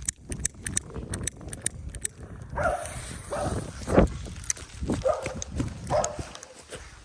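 Fireworks going off: a quick run of crackling pops, then a single sharp bang about four seconds in.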